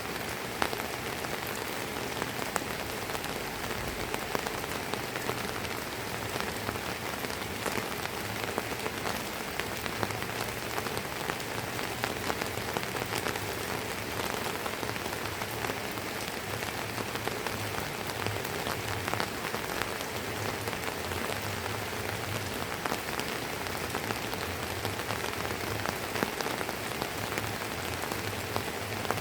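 Light drizzling rain falling steadily: an even hiss with frequent sharp taps of single drops striking close by.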